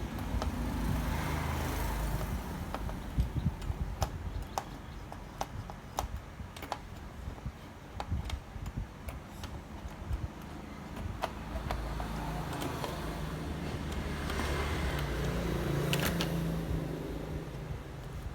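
Irregular light clicks and taps over a steady low hum, most of them between about 3 and 13 seconds in.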